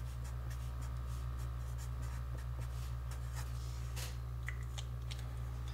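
Felt-tip marker scratching faintly on paper as a word is written, with a few small taps, over a steady low hum.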